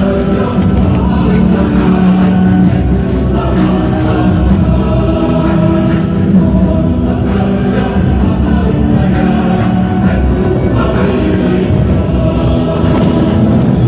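A large group of voices singing a slow chant in unison, with long held notes.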